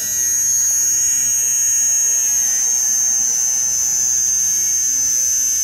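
Battery-powered lipstick-shaped facial hair remover with a rotating cutting head, running with a steady high-pitched whine as it is moved over the upper lip.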